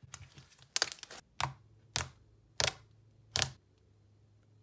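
Hands squeezing and pressing a thick, fluffy butter slime, giving short squishy crackles, about five of them in under three seconds.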